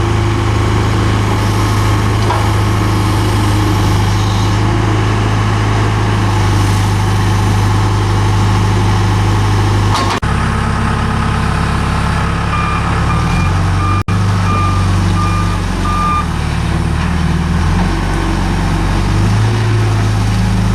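John Deere 310G backhoe loader's 4045D four-cylinder diesel running steadily. After a break about ten seconds in, the engine note shifts and the reverse alarm beeps about twice a second for a few seconds as the machine backs up.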